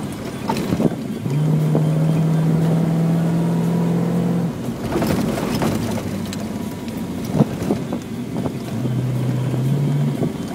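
Rally car's engine running hard at speed on a dirt track, heard from inside the cabin, with rattles and knocks from the rough surface. The steady engine note drops away about four and a half seconds in and comes back near the end.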